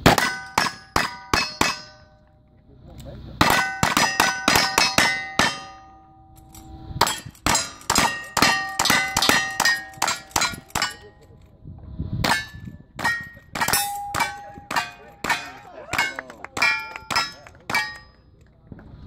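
Rapid gunfire at steel targets, each hit ringing out with a clear metallic tone. The shots come in four quick volleys with short pauses between them, as the shooters change guns.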